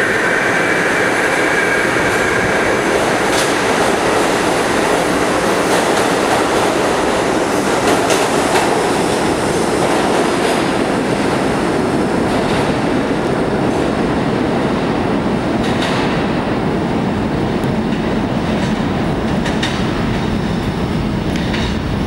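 R32 subway train pulling out of the station and running off down the tunnel: a steady rumble of steel wheels on the rails with scattered clicks over rail joints. A high steady tone fades out in the first few seconds.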